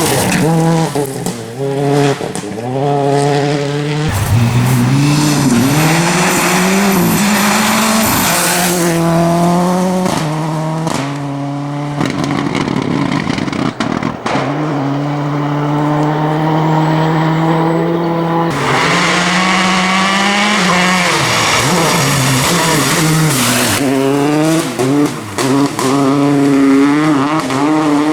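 Rally car engines at full throttle on a gravel stage, revving up through the gears with repeated climbs in pitch, each ending in a sharp drop at the gearshift, broken by stretches of steady high revs, with a few sharp cracks among them.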